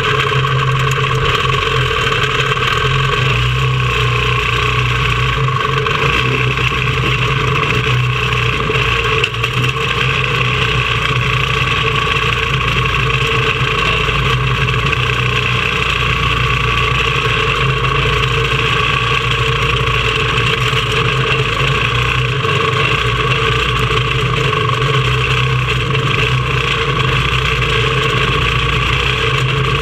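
Quarter midget race car's small engine running steadily, picked up close by the onboard camera.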